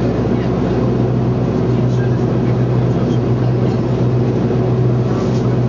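Steady drone of an airplane in flight heard inside the passenger cabin: engine and airflow noise with a strong low hum.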